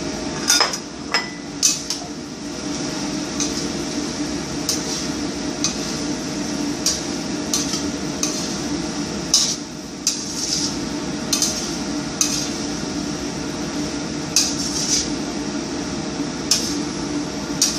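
A cooking utensil stirring eggplant into pumpkin and mushrooms in a pan. It knocks and scrapes against the pan at irregular intervals, about once a second, over a steady hum.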